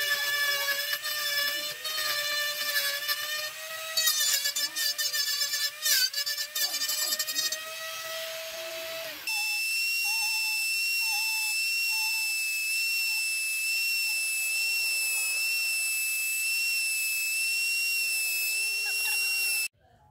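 Small electric rotary carving tool whining at high speed as its bit grinds into the wooden horse figure, the pitch wavering and dipping as the bit bites. About nine seconds in, the sound changes abruptly to a steadier, higher-pitched whine, which cuts off suddenly shortly before the end.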